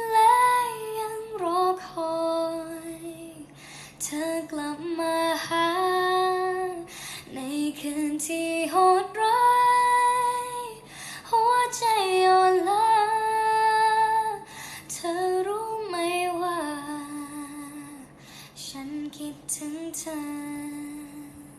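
A woman singing a slow Thai song melody, holding long notes and sliding between pitches, with little audible accompaniment; the singing fades out near the end.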